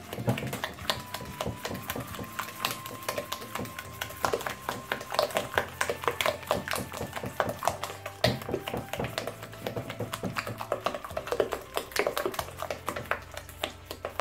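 Spatula beating eggs and sugar in a glass mixing bowl: rapid, uneven taps and clicks of the spatula against the glass.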